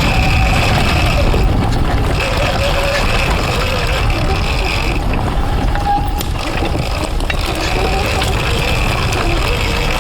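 Surron Ultra Bee electric dirt bike with a TORP TM50 Pro motor, its whine rising and falling in pitch with the throttle over rumbling wind and tyre noise. A thin high whine drops out twice as the throttle is rolled off.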